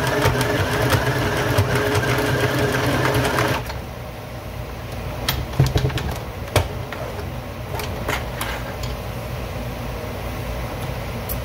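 Electric sewing machine stitching steadily, then stopping suddenly about three and a half seconds in. A few sharp clicks follow.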